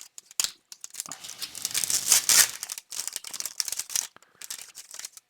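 Thin plastic packaging crinkling and rustling as it is handled, with a denser, tearing-like rustle about two seconds in and a few small clicks.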